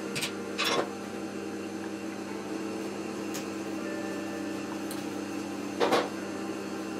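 A few short metal clinks and clatters as bolts are worked out of an old electric motor's end cover with pliers. The loudest comes about six seconds in, as a long through-bolt drops onto the metal worktable. A steady electrical hum runs underneath.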